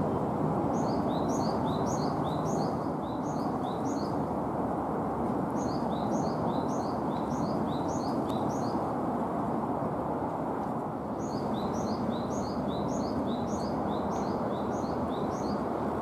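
Japanese tit (great tit) singing: three bouts of quickly repeated phrases of three high notes stepping downward, over a steady low background rumble.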